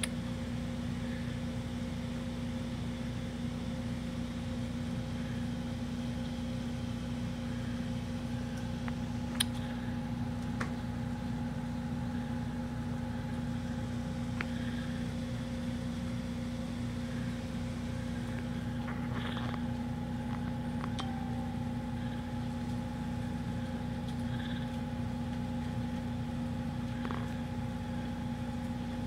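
Kitten purring steadily, a low continuous rumble under a steady hum, with one sharp click about nine seconds in.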